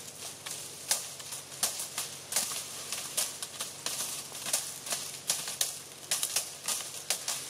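Sun-dried bay laurel branches being beaten to knock the leaves off: irregular sharp, crisp cracks and rattles of dry twigs and leaves, a few strikes a second from several workers at once.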